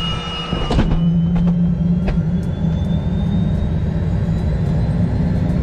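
Robinson helicopter's engine and rotor running on the ground, heard from inside the cockpit: a steady low drone under a high whine that slowly rises in pitch as the revs come up. A few sharp clicks in the first two seconds, the loudest about a second in.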